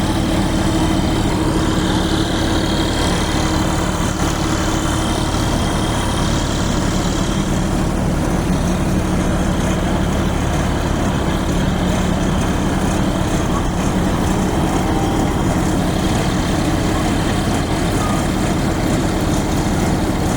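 Indo Farm tractor's diesel engine running at a steady speed, without revving.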